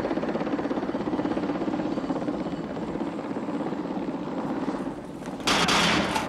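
Helicopter running steadily, its rotor chopping rapidly, easing off about five seconds in. Near the end a loud burst of hiss cuts in for under a second.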